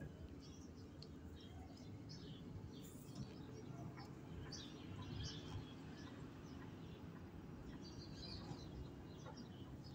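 Faint background with scattered short, high bird chirps over a low, steady rumble.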